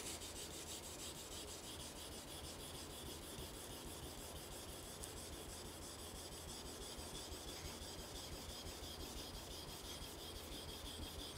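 Steel kitchen knife blade being rubbed back and forth over a wet Tsushima Nagura natural whetstone with mud on its surface, a polishing pass. It is a faint, steady rubbing scrape.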